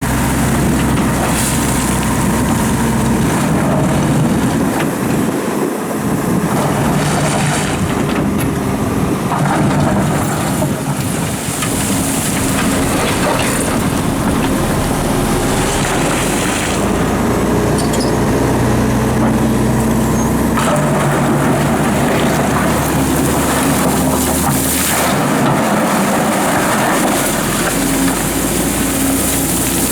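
Doosan DX300 excavator's diesel engine running under working load, its pitch stepping up and down as the machine digs, with stretches of rushing noise now and then from the gravel and water being worked.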